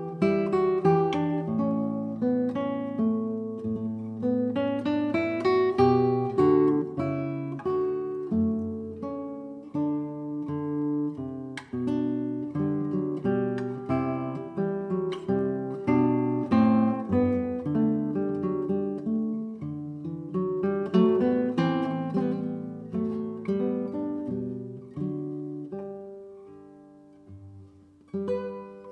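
Background music: plucked acoustic guitar notes, fading away near the end before the playing picks up again.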